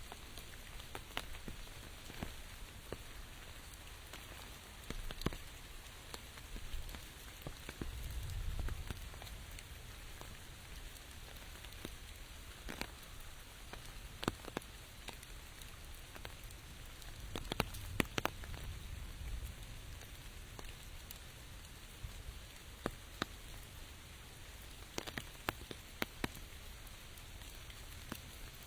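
Steady rain falling, with scattered louder single drops ticking sharply. A low rumble swells about eight seconds in and again around eighteen seconds.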